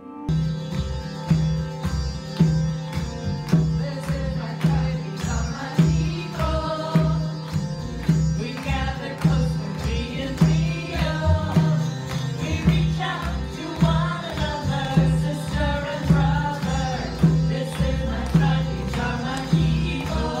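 Live devotional kirtan music: a steady hand-drum beat over a harmonium drone, with a sung chant coming in a few seconds in.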